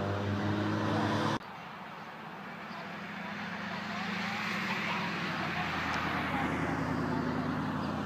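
A steady car engine hum that cuts off abruptly about a second and a half in. It is followed by the road noise of cars driving past, a broad rush of tyres and engines that swells through the middle and eases off near the end.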